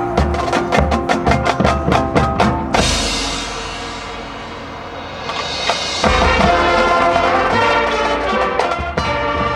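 High school marching band playing. A quick run of sharp percussion strikes ends in a crash that rings away, then the full band swells into a loud, held chord.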